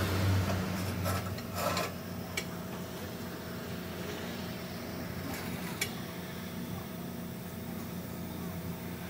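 Steady low machine hum in a workshop, with a few light clicks and knocks scattered through it.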